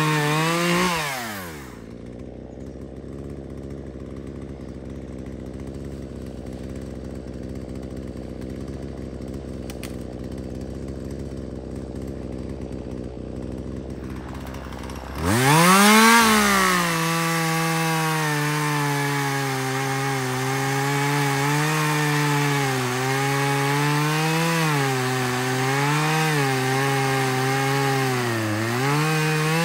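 Chainsaw engine let off from full throttle, winding down to a steady idle about two seconds in. It idles for about thirteen seconds, then is revved hard again and held at high speed, the pitch dipping and recovering as it cuts wood, before dropping off at the very end.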